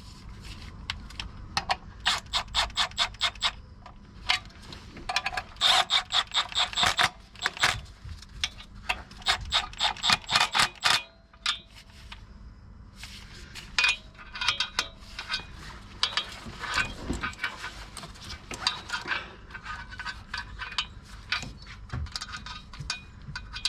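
Ratchet wrench clicking in quick runs of strokes with short pauses between, as bolts are turned.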